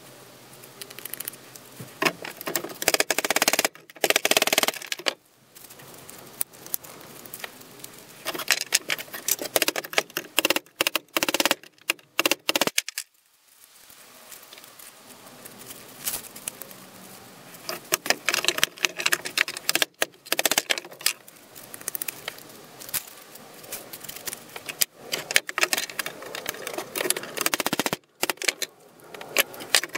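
Metal tapping and clinking as a punch is worked against the rivet pins in the handle of a rusty folding machete, with loose metal parts clinking as they are handled. It pauses briefly about halfway through.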